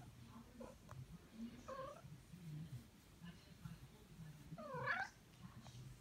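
Domestic cat meowing while being stroked: a short meow about two seconds in, then a louder, longer meow that rises and falls near the end.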